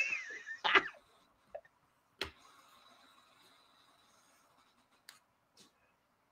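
A short breathy laugh in the first second, then near-quiet room tone with a sharp faint click about two seconds in and another near the end.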